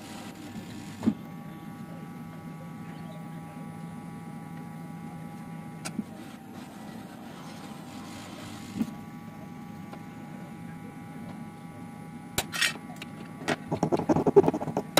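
Hot-air rework gun's blower running with a steady hum during BGA chip reballing work, with a few single light clicks. In the last few seconds, metal tweezers click and scrape against the steel stencil and chip, the loudest sounds.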